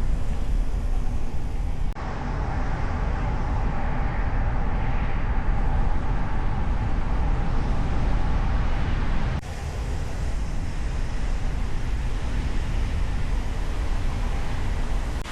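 Car driving through city traffic, heard from a microphone on its hood: a steady rush of road, engine and traffic noise with a heavy low rumble. The sound changes abruptly twice, about two seconds in and again after about nine and a half seconds.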